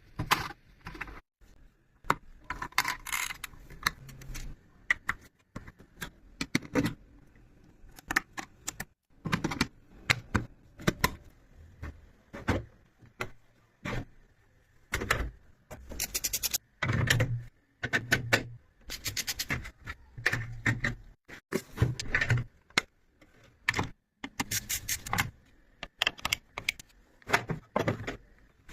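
Computer parts being handled and fitted together while building a PC: many irregular clicks, taps and short rattling clusters.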